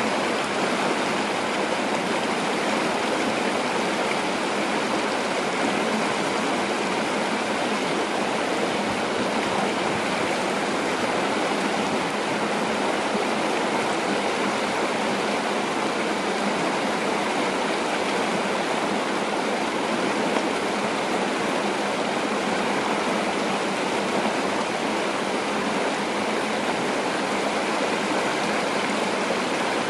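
A shallow stream rushing steadily over small rapids.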